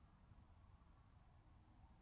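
Near silence, with only a faint, even low rumble.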